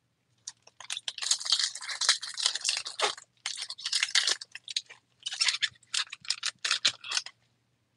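Foil wrapper of a 2023 Bowman Baseball card pack being torn open and crinkled by hand: a run of crisp rustles with two short pauses, stopping shortly before the end.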